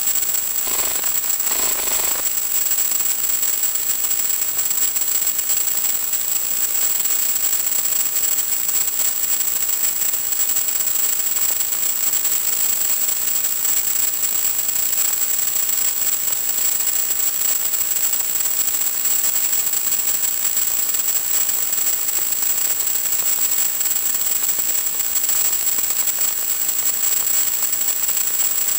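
Steady radio static hiss with a constant high-pitched whine, as recorded from the audio channel of an analog FPV video link; a few faint crackles come in the first two seconds.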